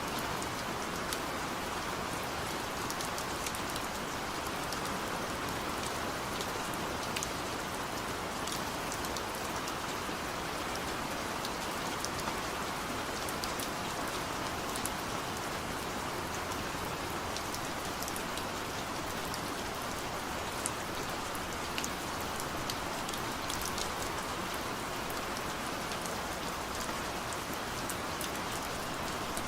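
Steady rainfall, an even hiss of rain with many small drops ticking sharply on a surface throughout.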